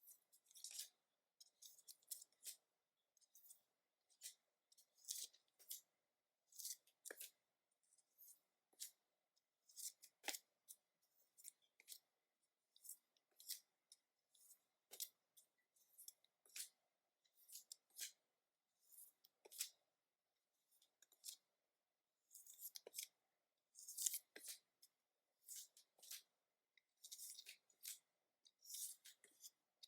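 Pokémon trading cards being handled: a run of faint, quick, crisp slides and flicks, one or two a second, as cards are flipped and slid past one another, coming in thicker clusters in the last third.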